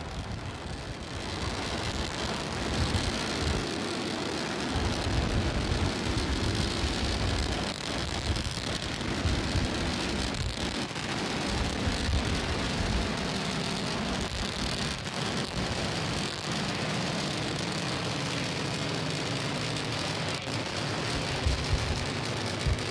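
Starship SN8's three Raptor rocket engines firing during ascent: a steady, rough rumble of rocket exhaust.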